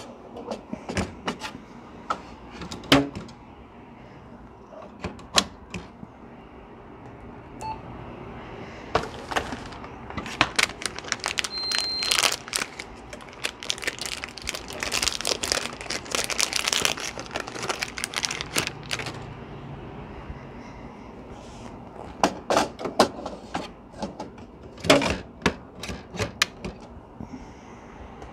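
Ink cartridges being unwrapped and fitted into a Canon inkjet printer: a run of sharp plastic clicks and knocks, with a long stretch of rustling and crinkling packaging in the middle. A short high beep sounds about twelve seconds in.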